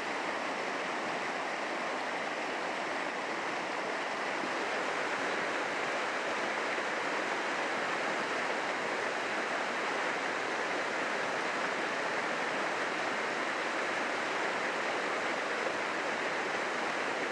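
A small waterfall on a mountain creek pouring into a rocky pool, a steady even rush of water.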